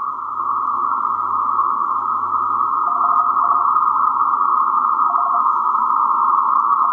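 Ten-Tec Paragon 585 transceiver's receiver giving out a steady mid-pitched hiss of band noise from its speaker. A faint keyed tone breaks through briefly about three seconds in and again about five seconds in.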